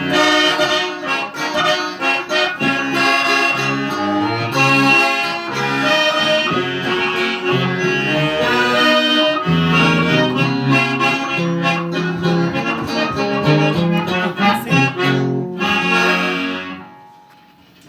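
Accordion playing a lively instrumental passage with guitar accompaniment, stopping near the end.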